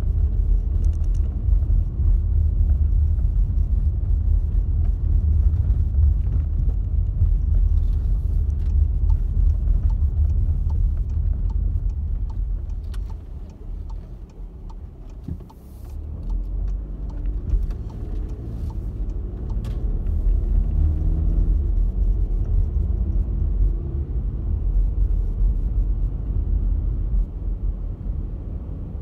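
Car driving on narrow country roads, heard from inside the cabin: a steady low rumble of tyres and engine with scattered small clicks. About halfway through the rumble drops as the car slows, then the engine note rises and falls again as it picks up speed.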